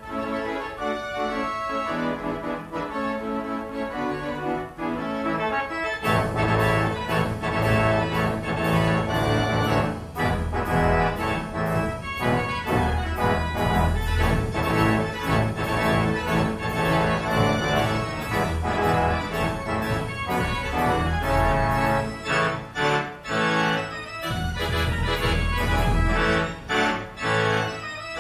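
Large pipe organ playing a piece. About six seconds in it swells to a much fuller, louder sound as deep pedal bass and bright high stops join the chords.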